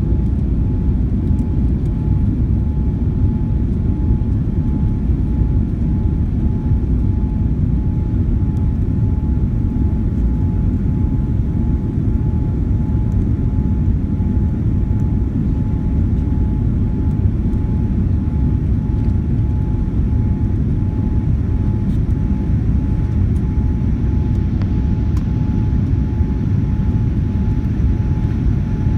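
Airliner cabin noise in the climb after take-off: a steady, loud low rumble of the jet engines and airflow, with a thin steady whine held above it.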